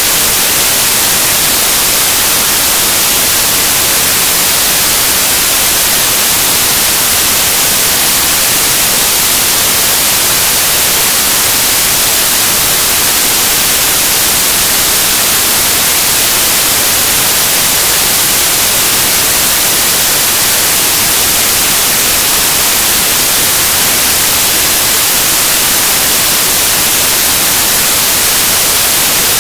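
Loud, steady static hiss like white noise, unbroken and unchanging, covering any sound from the match.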